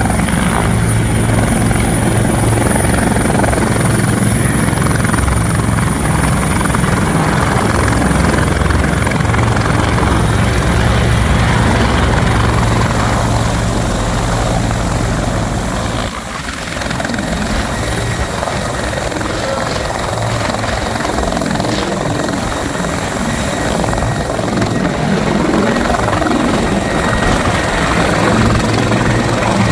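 Bell 412EP twin-turbine helicopter running loud, its rotor and engine noise steady with a thin high turbine whine that fades out. About halfway through the sound dips briefly, then comes back choppier.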